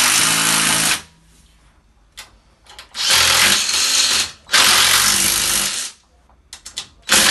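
Cordless drill-driver running in three bursts of about a second and a half each, driving screws to fix a boiler's steel wall-mounting bracket, with a short fourth burst at the end and small clicks between.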